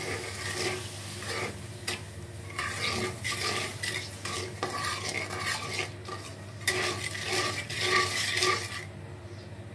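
Spatula stirring and scraping around a wok of water, sugar and whole spices in irregular strokes, dissolving the sugar for a syrup. The scraping stops about a second before the end.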